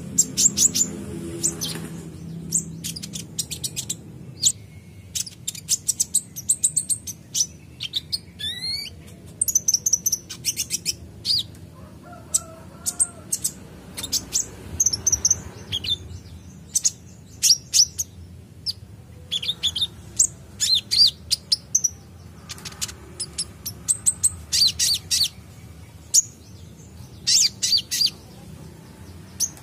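Van Hasselt's sunbird (kolibri ninja) singing: bursts of fast, very high-pitched chirps and trills that keep coming with short pauses between them, with a rising whistled glide about eight seconds in.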